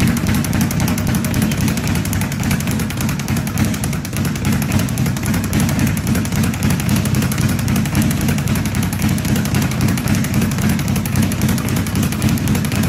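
Speed bag hit in a fast, steady rhythm, rattling against its wooden rebound platform in a continuous run of sharp thuds.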